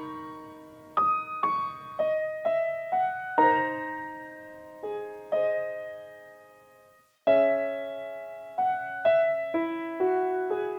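Background piano music: slow, gentle piano notes, each struck and left to ring and fade. The music drops out briefly about seven seconds in, then starts again.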